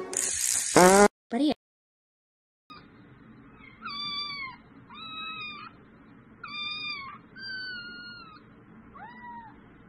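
Several kittens meowing in turn for a treat held above them: five high meows, each bending in pitch, over a faint room hum. Before them, in the first second, there is a brief loud noise with a rising pitch and then a short silence.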